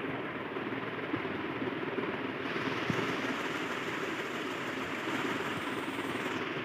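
Steady background noise with no speech: an even hiss and rumble picked up by the recording microphone, with a few faint clicks and a thin high hiss joining from about two and a half seconds in until just before the end.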